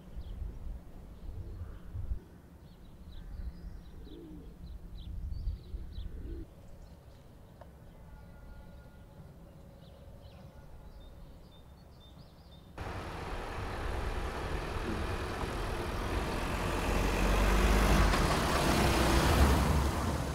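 Small birds chirping over a low background rumble. About two-thirds through, the sound cuts to a van driving past close by: engine and tyre noise that swells to its loudest near the end, its pitch falling as it passes.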